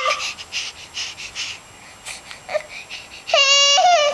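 Baby crying: a run of quick, breathy sobbing gasps, then a short high-pitched wail a little past three seconds in.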